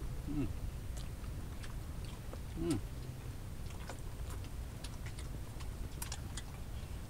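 A man chewing and biting bamboo-cooked grilled eel, with scattered small crunching clicks and two brief vocal sounds.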